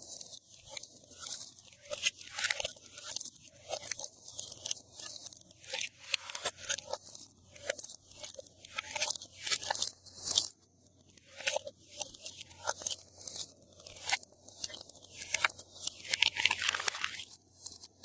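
Glossy slime being kneaded and pressed by hand with items mixed into it, giving a crunchy crackle and pop with each press, about two or three presses a second.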